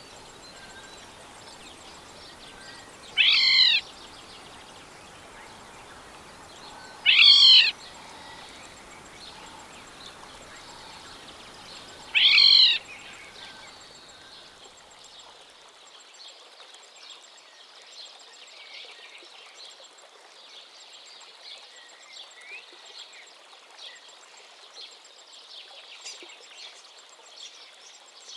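African black-headed oriole calling: three loud, short calls, each a rich stack of curving tones, about four seconds apart. From about 14 s in, only faint scattered chirps over a light background hiss.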